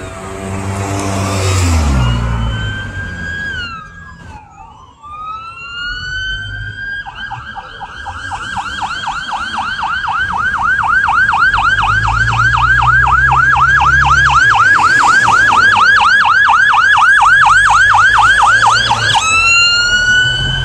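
Emergency vehicle sirens of a police escort and ambulance running with lights and sirens. A slow rising and falling wail switches about seven seconds in to a fast yelp of about four sweeps a second, then back to a wail near the end, over a low engine rumble.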